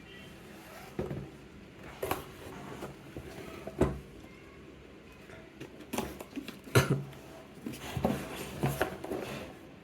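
Parcel packaging being handled and opened: rustling with a scattering of irregular knocks and clicks, the sharpest about 4 and 7 seconds in.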